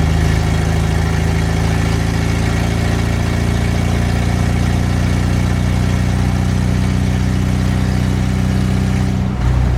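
ZMZ-402 2.4-litre four-cylinder engine of a Volga running steadily with its resonator and muffler gone, so the exhaust is unsilenced. It dips briefly near the end.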